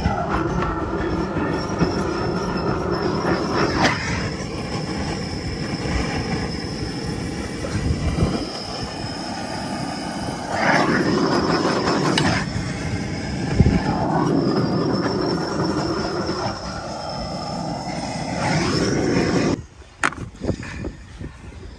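A heating tool running with a steady rushing sound and a faint high whine, swelling at times, warming bitumen tape for a gutter repair. It cuts off sharply about twenty seconds in.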